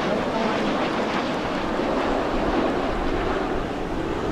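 Jet noise from a formation of BAE Systems Hawk jets, their Adour turbofans making a steady rushing roar as they fly past.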